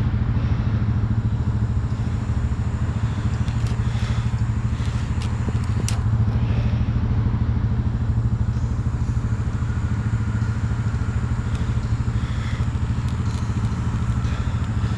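An engine running steadily at a constant speed, with a few light metallic clicks and clanks over it.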